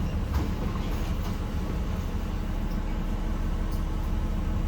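Cummins ISM inline-six diesel in a 1993 Gillig Phantom transit bus running with a steady low hum, heard from inside the bus, with a few faint light clicks and rattles.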